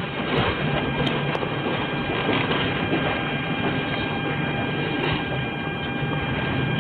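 Police body-camera audio: a steady hiss with rustling and a few faint ticks as the wearer walks through the house.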